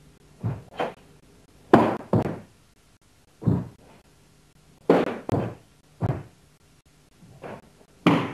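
Sharp snaps and thumps of a karate kata, about ten of them, some in quick pairs: the cotton gi snapping with each strike and bare feet stamping on a wooden floor.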